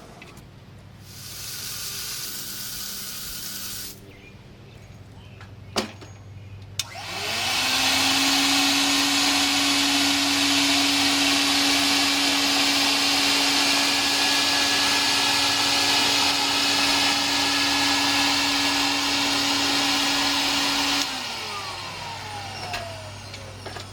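Nobles SpeeDry industrial vacuum floor dryer's motor starting up with a rising whine, running steadily with a hum and a loud rush of air for about fourteen seconds, then switched off and winding down with a falling whine near the end. A shorter burst of noise and a couple of clicks come before it starts.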